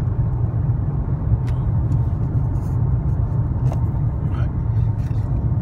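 Steady low rumble of a car driving along, engine and tyre noise heard from inside the cabin, with a few faint clicks.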